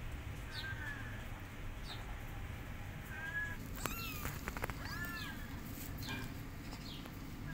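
Young kitten meowing loudly in several short, high-pitched calls, each rising and falling. These are the calls of a kitten left alone, away from its mother.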